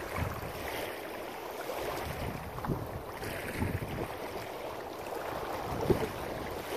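Wind buffeting the microphone over small waves lapping at a rocky reservoir shore, a steady rushing noise. A few brief knocks stand out, the sharpest about six seconds in.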